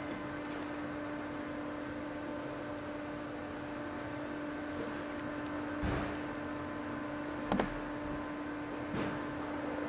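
Steady low hum with a hiss, broken by a few light knocks about six, seven and a half and nine seconds in, while motor oil is poured from a plastic jug through a funnel into an engine.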